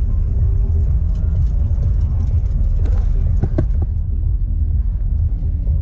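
Wind buffeting the microphone of a camera carried on a moving bicycle: a steady, loud low rumble.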